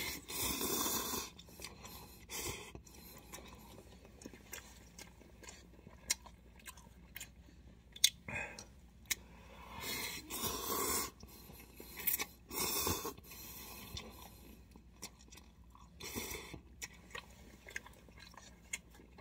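A person slurping instant cup noodles and chewing them with wet mouth smacks and clicks. Four long slurps stand out: at the start, about ten seconds in, about thirteen seconds in, and about sixteen seconds in.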